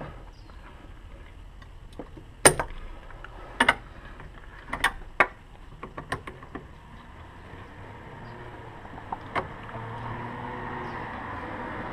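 A handful of sharp metallic clicks and snaps from locking pliers and a spring hose clamp being handled while a coolant hose is refitted to a plastic reservoir, with the loudest click about two and a half seconds in.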